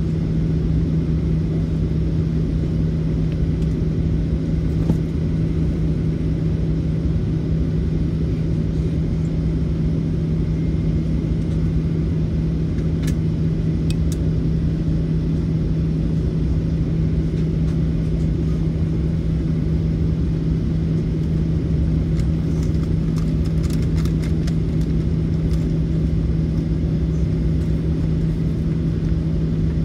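Cabin noise of a Boeing 737-800 taxiing: its CFM56 engines at low taxi thrust give a steady hum over a low rumble, with a few faint light ticks about halfway through.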